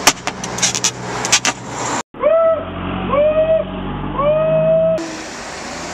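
A run of sharp, irregular taps and knocks near a microphone. About two seconds in, a person's voice makes three high calls into the microphone, each rising then falling in pitch and lasting under a second.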